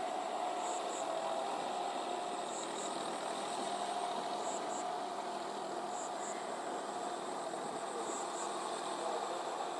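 John Deere 5045D tractor's three-cylinder diesel engine running steadily as it works a rotary tiller through flooded paddy mud on cage wheels. Pairs of short, high chirps recur about every two seconds over the engine.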